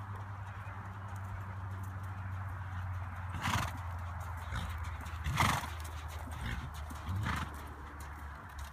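A ridden horse walking on the soft dirt footing of an arena, with three short, louder sounds about two seconds apart, the middle one the loudest.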